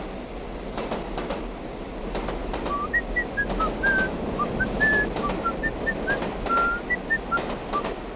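Small birds chirping in short, scattered notes from about three seconds in, over a steady background hiss, with occasional light knocks.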